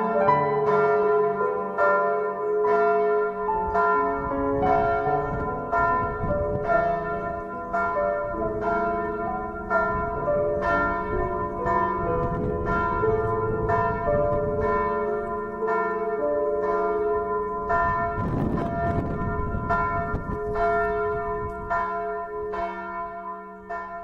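Church bells pealing, several bells at different pitches struck about every two-thirds of a second with long ringing tones; they begin to fade near the end.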